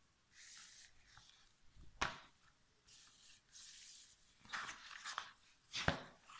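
Short bursts of rustling from things being handled on a table, with two sharp knocks, one about two seconds in and the louder one near the end.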